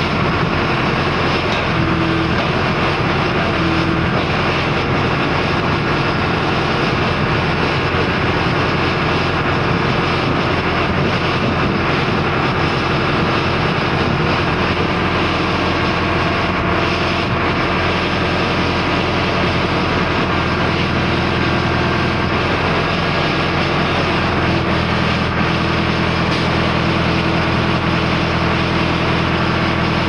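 Tractor engine running steadily, driving the hydraulics of a tractor-mounted knuckle-boom crane as its grabber is moved over the bales. A steadier, clearer hum comes in about three-quarters of the way through, as the load on the engine changes.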